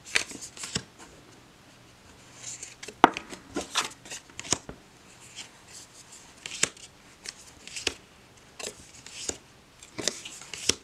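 Tarot cards being handled one at a time: soft sliding rustles and light, sharp taps at irregular moments as cards are drawn off the deck and laid down.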